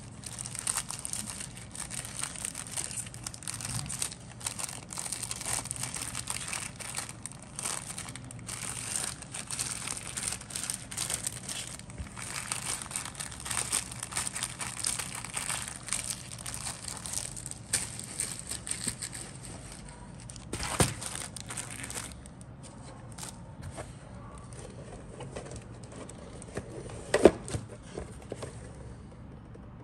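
Clear plastic bag crinkling as the plastic model kit sprues inside it are handled. About two-thirds of the way through the crinkling thins out to scattered crackles and a few sharp knocks, the loudest of them near the end.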